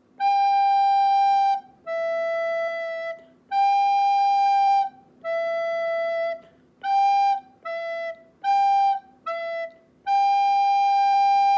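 Recorder playing a two-note interval exercise, alternating G and E. First come four long half notes, then four quicker quarter notes, ending on a long held G. The tones are clear and steady.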